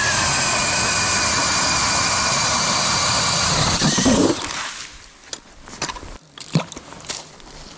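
Cordless DeWalt drill driving an ice auger through lake ice: a steady motor whine with the noise of the blade cutting ice. It winds down after about four seconds, and a few light knocks follow.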